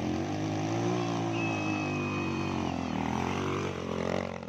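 Dirt bike engines revving during an enduro motocross race, the pitch rising and falling as the throttle opens and closes.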